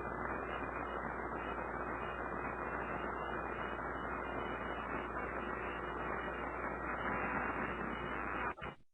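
Steady background hiss with a low mains hum, the room tone of the recording, which cuts off abruptly near the end.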